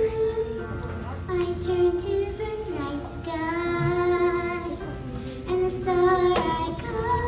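A child's voice singing a song through a stage microphone, long held notes that waver in pitch, over musical accompaniment.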